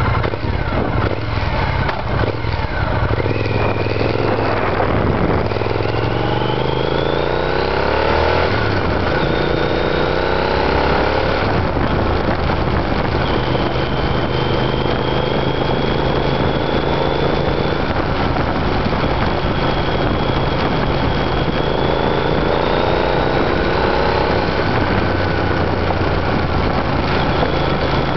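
2006 Triumph Scrambler's 865 cc parallel-twin engine under way, its pitch climbing and breaking at gear changes through the first dozen seconds. It then runs at a steadier cruise with another pull up in revs about two-thirds of the way through, over steady wind rush.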